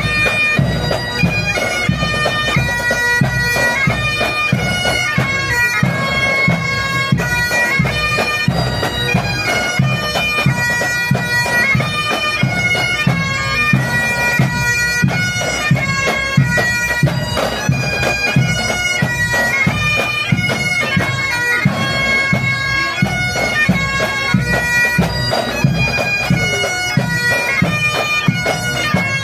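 A pipe band playing a march on Highland bagpipes: the drones hold a steady tone under the shifting chanter melody, with a regular low beat underneath.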